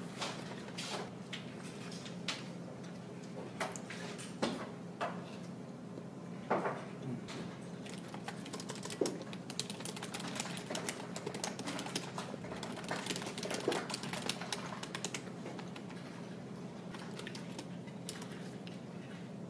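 Typing on a computer keyboard: quick, irregular clicks of key presses, thickest in the middle of the stretch, over a steady low hum.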